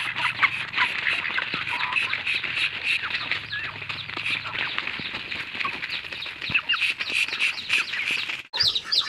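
A flock of hens pecking rice grains off a plastic feed sack: a dense patter of quick beak taps, with short calls from the birds among them. The sound breaks off abruptly near the end.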